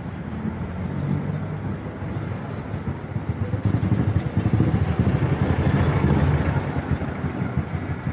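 Street traffic: motor vehicle engines running as a low rumble, growing louder from about three and a half seconds in and easing off near the end.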